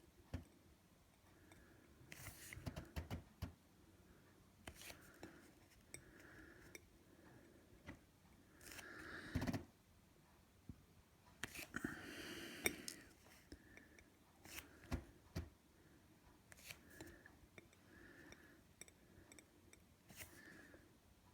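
Near silence with faint, scattered clicks and scrapes of small parts being handled, as tiny SMD LEDs are picked up and set into wet plaster, with a few louder clicks and soft breathing close by.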